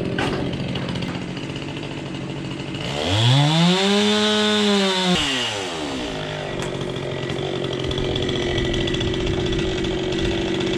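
Chainsaw running at a low steady speed, revved hard once for about two seconds a few seconds in, the pitch rising and then falling back. It then runs on at a steady lower pitch.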